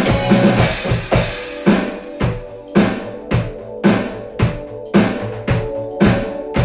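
Electronic drum kit played along to a pop backing track with bass and synths: a busy run of hits in the first second and a half, then a steady kick-and-snare beat of about two hits a second.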